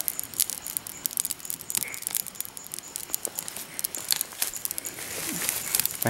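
Wood campfire of sticks and dry twigs crackling, an irregular run of small sharp snaps and pops over a faint hiss.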